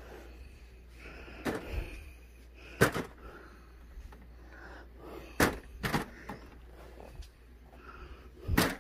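A handful of sharp knocks and clunks at irregular intervals, about five in all, over faint room noise.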